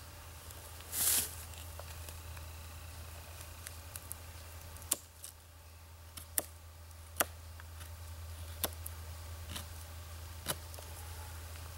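A knife blade shaving a wooden wedge once, a short rasping cut about a second in, then several sharp clicks and taps spaced a second or so apart, over a steady low hum.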